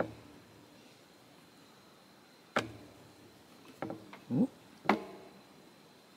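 Hands working the threads on a wooden inkle loom: a few sharp clicks and taps, one at the start, one about two and a half seconds in and a small cluster around four to five seconds. A short rising hum comes just before the last click.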